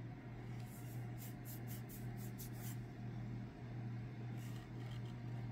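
Faint handling sounds: a run of quick light scratches, about eight in two seconds, then two more near the end, as a hand turns a steel axe head on its hickory handle, over a steady low hum.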